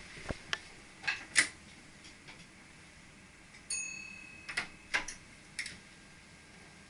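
Scattered sharp clicks and knocks inside a VIRM train's driver's cab, with a single bell-like ding about four seconds in that rings for about a second.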